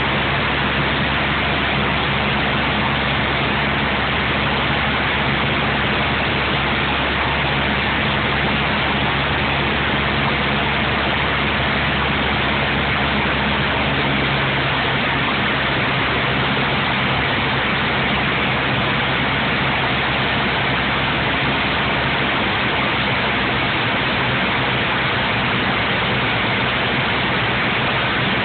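Light aircraft's engine and propeller drone mixed with rushing air noise, heard from inside the cockpit. It is steady and loud, with a low hum that eases a little in the last few seconds.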